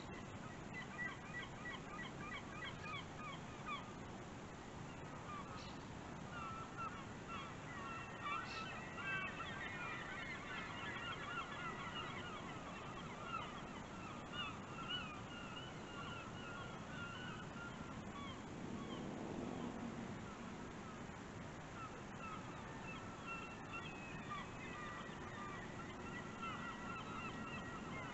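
A flock of birds calling, a dense chorus of many short, repeated honking calls overlapping one another, over a steady low hiss of wind and water.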